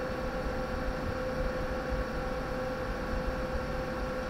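Olivetti NetStrada 3200 dual Pentium II server running through its power-on memory test: a steady whir of cooling fans with a constant mid-pitched whine.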